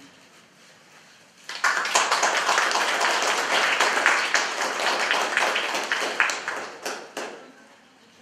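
Audience applauding: clapping breaks out about a second and a half in, lasts about five seconds, and dies away near the end.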